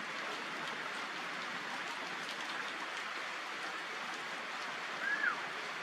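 Steady rain falling, an even hiss. About five seconds in, a brief high call rises and falls once.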